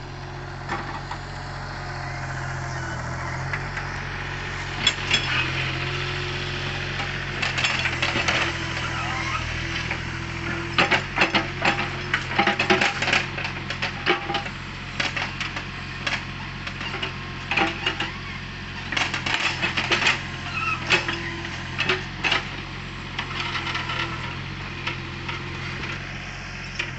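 Excavator's diesel engine running steadily, overlaid with many sharp metallic clanks and rattles. They come singly and in quick clusters from about five seconds in until near the end, typical of the bucket and linkage working against rock or debris.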